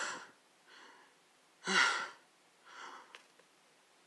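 A cartoon pony character breathing hard, a breath in or out about once a second, louder and softer in turn, heard through a TV speaker.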